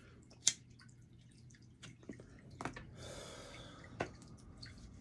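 A man lighting and smoking a cigarette: a sharp lighter click about half a second in, a few fainter clicks, and a soft breathy hiss of smoke around three seconds in, with another click at about four seconds.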